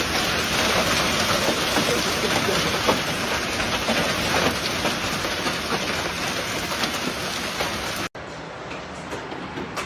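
Heavy rain or hail pelting down, a dense, steady hiss full of tiny ticks. It cuts off abruptly about eight seconds in and is followed by a quieter hiss of rain.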